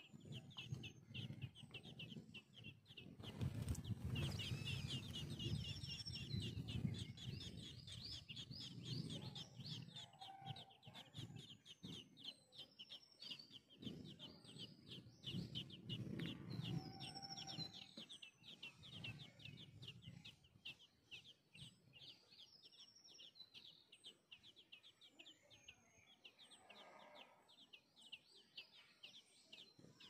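Songbird nestlings begging as they are fed: a fast, unbroken run of short high cheeps, several a second, growing fainter over the last several seconds. A thump about three and a half seconds in, with occasional separate chirps from other birds.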